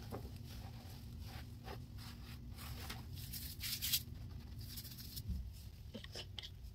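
Soft crunching and scratching of dry baking soda powder as nitrile-gloved hands press and set down cellulose sponges in a bowl, in a few short scrapes. The loudest crunch comes about three and a half seconds in. A low steady hum runs underneath.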